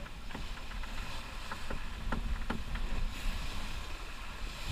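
Wind buffeting the microphone over water rushing and splashing along the hull of a sailing yacht under way, with a few short sharp clicks in the first half.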